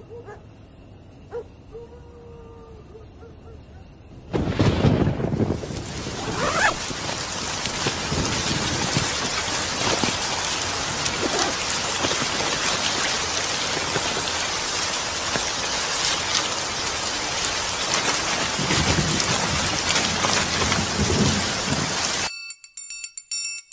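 A sudden thunderclap about four seconds in, then heavy rain pouring down in a steady hiss with further low rumbles of thunder, cutting off abruptly near the end.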